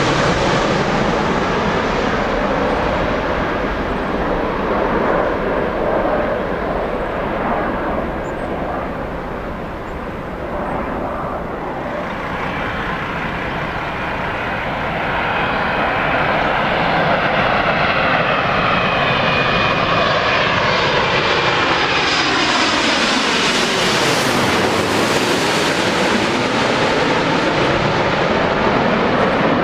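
Large jet airliner's engines on landing approach, passing low: a rumble that grows louder from about halfway, with a high fan whine and a sweeping, phasing tone that falls and then rises again as it goes by.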